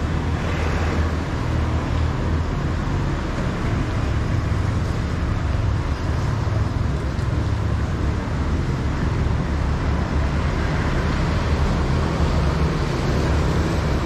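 Steady street traffic noise from motorbikes and cars passing on the road, with a constant low rumble.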